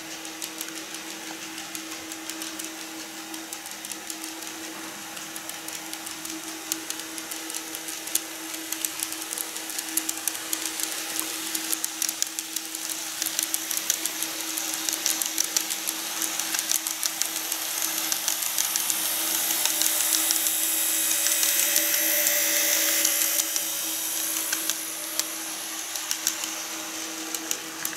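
KATO N-gauge 787 series model train running along the track: a steady small-motor whir with many light clicks from the wheels on the rail joints. It grows louder as the train draws close about two-thirds of the way through, then eases off near the end.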